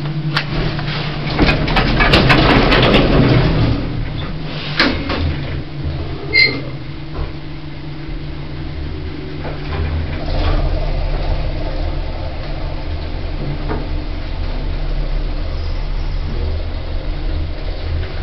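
Hospital passenger lift: clunks and knocks as the doors work, a short beep about six seconds in, then a steady low hum as the car travels.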